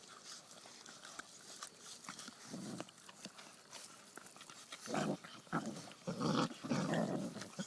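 Bullmastiff puppies growling and grumbling as they squabble over food, in short rough bouts that get louder and closer together in the second half.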